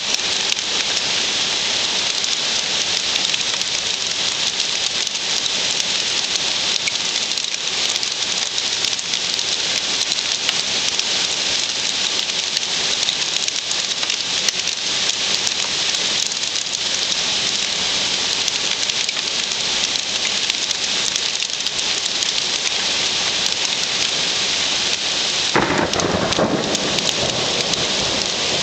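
Heavy hail with rain pelting down, a dense steady patter of hailstones striking surfaces. It grows briefly louder about three seconds before the end.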